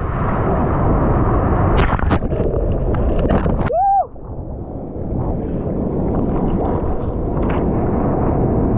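Churning surf and spray rushing over the camera's microphone as a breaking wave washes over it, with sharp splashes and pops against the housing. About four seconds in, the rush briefly drops away under a short tone that rises and falls, then the steady wash of white water and wind comes back.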